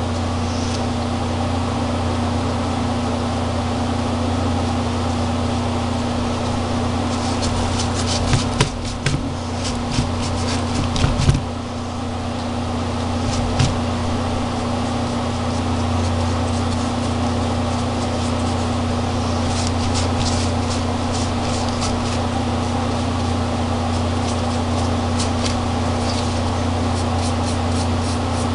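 A steady low mechanical hum, with scattered light clicks and scratches about eight seconds in and again from about twenty seconds in.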